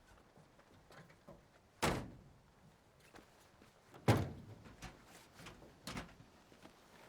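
Three separate dull thuds about two seconds apart, the middle one loudest, each fading quickly.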